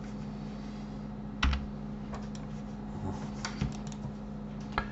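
Computer keyboard keys and mouse buttons clicking: about half a dozen separate clicks, the loudest about a second and a half in, over a steady low hum.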